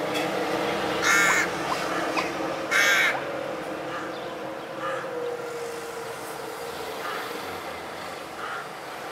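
Crow cawing: two loud, harsh caws about a second and three seconds in, with fainter caws later. Under them a steady low hum, with a low tone sliding slowly down between about three and seven seconds in.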